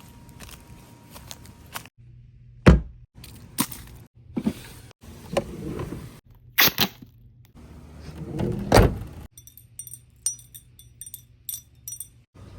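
A string of edited foley sound effects: sharp thuds and knocks, the loudest a few seconds in, separated by abrupt cuts to silence. In the second half comes a run of short metallic jingles.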